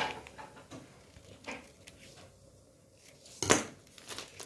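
Scissors cutting newspaper in a few separate snips, with a louder hard clack about three and a half seconds in.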